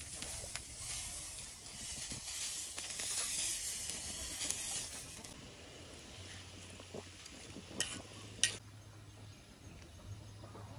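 Granulated sugar poured in a stream into a pot of simmering winter melon tea, a hissing rush for about five seconds. Then the pot is stirred with tongs, with two sharp clicks of the utensil against the aluminium pot about eight seconds in.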